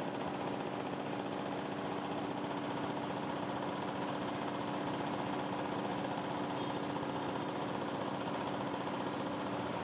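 Small single-cylinder diesel engine running steadily, driving a meat mincer as meat is fed through it.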